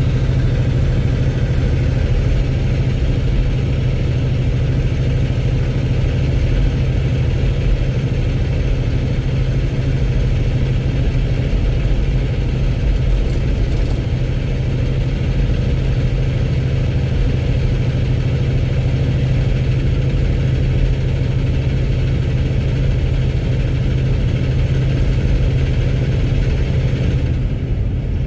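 Cummins X15 inline-six diesel engine running steadily with a hard, knocking clatter, which the owner says sounds like rod knock or an engine low on oil.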